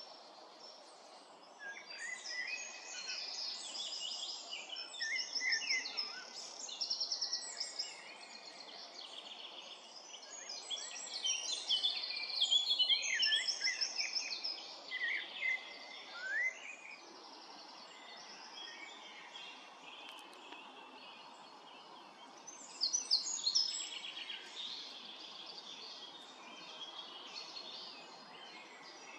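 Songbirds singing in runs of quick trills and chirps, busiest over the first half and again briefly after about twenty seconds, over a faint steady outdoor hiss.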